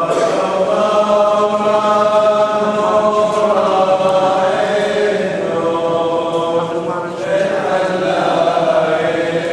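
Voices singing Chaldean liturgical chant in long held notes, with a brief break about seven seconds in before the chant carries on.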